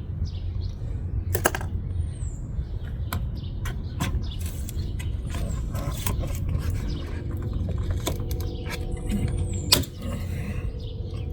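A sharp hand tool cutting and scraping at the seal around a Pontiac Fiero's quarter window glass, making irregular clicks and scrapes over a steady low rumble.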